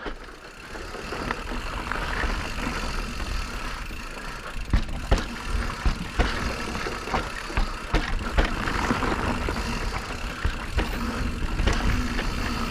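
Electric mountain bike riding along a dirt trail: steady tyre and wind rumble, with frequent sharp knocks and rattles over bumps.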